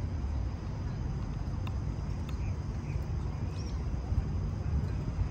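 Steady low outdoor rumble of wind and distant city noise, with a few faint high chirps a little after the middle.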